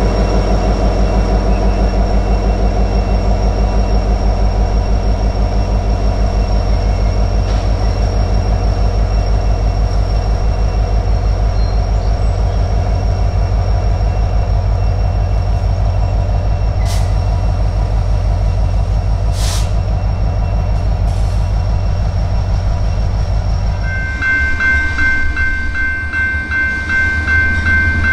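Diesel freight locomotive engine running close by with a deep, pulsing throb as the train rolls past. About 24 seconds in, the sound cuts to a grade-crossing bell ringing rapidly.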